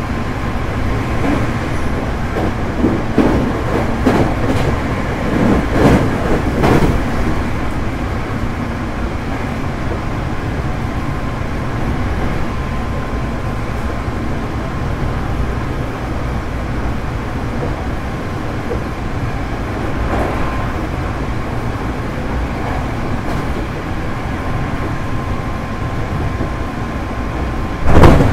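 Hankyu 8300 series electric train (late-batch, Toyo GTO-VVVF) running at speed, heard inside the car: a steady rumble of wheels on rail with a run of rail-joint knocks in the first several seconds and the air conditioning running. A sudden loud burst comes near the end.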